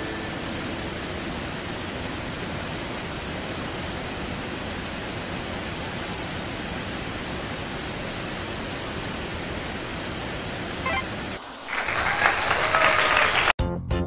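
Steady rush of a small waterfall and cascading stream. Near the end it gives way to a short, louder rushing noise, then acoustic guitar music begins.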